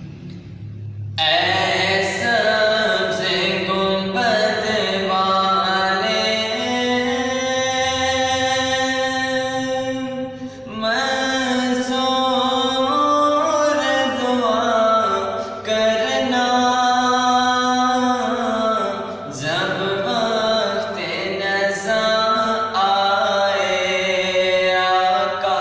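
A young man singing a naat, an Urdu devotional poem in praise of the Prophet, without instruments. He sings long held notes that waver and bend in ornamented runs. The singing begins about a second in, and there are brief breaks for breath.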